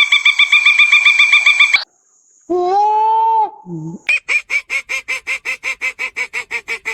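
Animal calls in three separate pieces: a fast run of high repeated notes, a brief gap, one drawn-out call with a short low note after it, then another long run of rapid repeated calls, about five a second.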